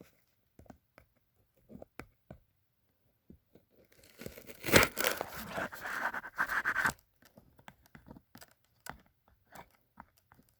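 A small shipping package being handled and torn at by hand: scattered taps and scrapes, then a burst of tearing about four seconds in that lasts around three seconds, followed by more light scraping and tapping.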